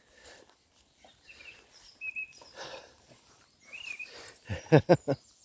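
A Border Collie–Cocker Spaniel cross puppy giving three short, loud barks in quick succession near the end, with faint high chirps and outdoor noise before them.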